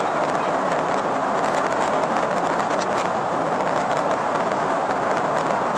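Steady road, tyre and wind noise of a patrol car driving at speed in a pursuit, with no siren or horn standing out.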